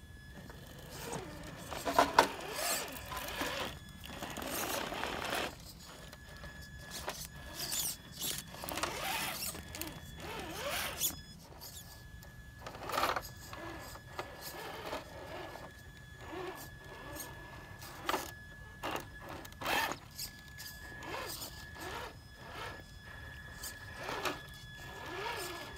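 Traxxas TRX-4 Sport RC rock crawler's brushed electric motor and geared drivetrain whining in repeated short bursts of throttle as the truck crawls over rocks.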